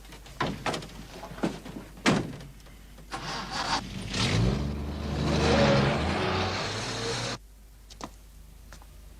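A motor vehicle's engine swells up, loudest about halfway through, and cuts off suddenly a little after seven seconds in. A few sharp knocks come in the first two seconds.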